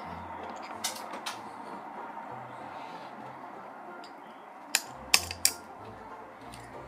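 Small toy pieces handled on a tabletop: scattered sharp clicks and taps, two about a second in and three louder ones close together near the end, over a steady background hiss.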